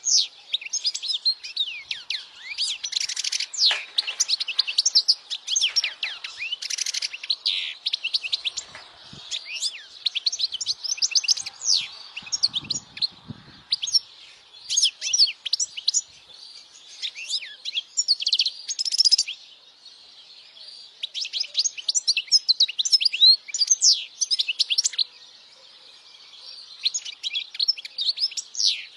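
European goldfinch singing a fast, twittering song of rapid high chirps and trills. The song breaks off briefly twice in the second half.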